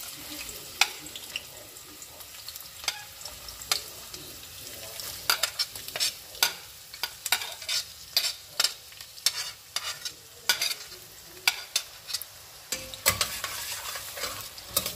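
Onions sizzling in hot oil in a pot, stirred with a utensil that clicks and scrapes against the pot again and again, more often in the second half.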